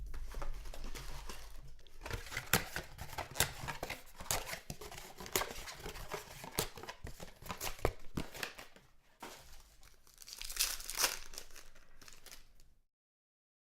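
Plastic wrapping being torn and crinkled as a sealed box and packs of trading cards are opened, with sharp crackles and rustling throughout. The sound cuts off to complete silence about a second before the end.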